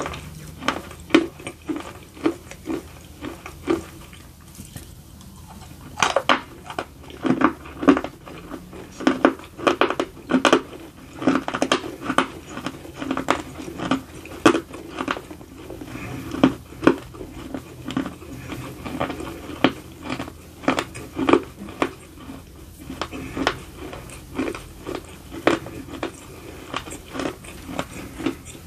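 Close-up crunching and chewing of a chunk of edible clay: sharp crunches come one or two a second, with a short quieter pause about four seconds in.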